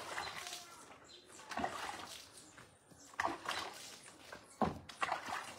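Water splashing and sloshing in irregular bursts as a dog is washed by hand, water thrown over its wet coat.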